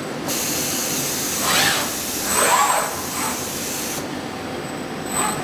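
Vacuum gripper on an industrial robot arm hissing with rushing air as it holds composite textile plies. The hiss starts just after the start and cuts off sharply about four seconds in. The arm's servo motors whine in rising and falling sweeps as it moves.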